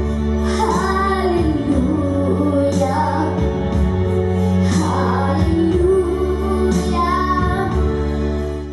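A young girl singing a melody into a handheld microphone over a steady sustained instrumental accompaniment; the sound cuts off at the very end.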